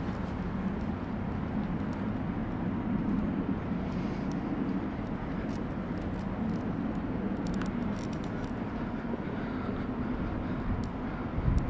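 Steady low rumble of city background noise, with a few faint, scattered clicks.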